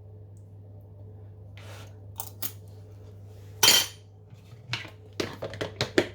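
Kitchen dishes and utensils clinking and clattering: a couple of light clicks, one louder clatter a little past halfway, then a quick run of clinks near the end, over a steady low hum.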